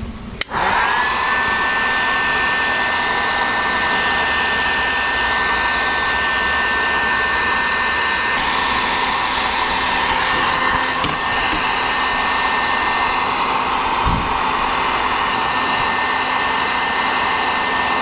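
Electric heat gun switched on about half a second in, then running steadily: its fan blowing hot air with a thin whine that rises briefly as it spins up, shrinking heat-shrink tubing over soldered wire splices.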